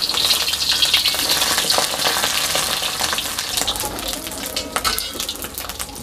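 A whole fish frying in hot oil in a metal wok, sizzling with a steady crackle. A metal spatula scrapes and turns it against the pan. The frying hiss is strongest in the first seconds and eases a little toward the end.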